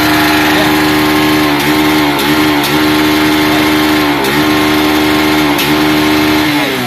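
Small motorcycle engine, its carburetor freshly adjusted, held at high revs with a few brief dips in speed. Near the end the revs fall away toward idle.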